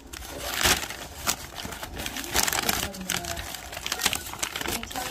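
Brown paper takeout bag crinkling and rustling as hands open it and rummage inside, in irregular crackling bursts.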